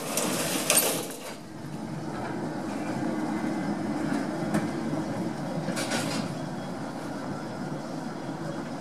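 Babbacombe Cliff Railway funicular car pulling away from the top station and running down the incline, with a steady low running noise from its wheels on the rails. A brief loud hiss comes at the start and another about six seconds in.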